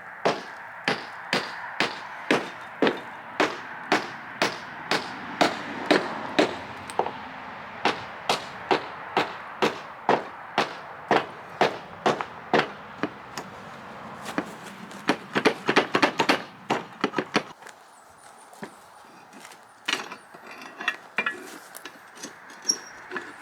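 Hammer blows, about two a second, knocking apart the rotten timber frame and rusted bolts of an old sawmill carriage. About fifteen seconds in comes a quicker flurry of blows, followed by scattered lighter knocks and clinks.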